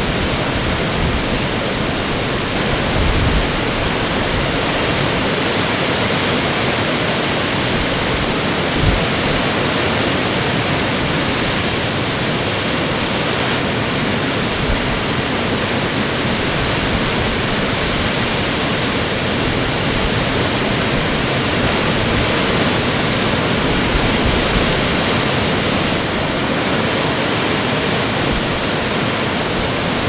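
Big storm waves on Lake Superior breaking and washing on the shore, a loud, unbroken wash of surf noise. A couple of brief low thumps stand out, about three and nine seconds in.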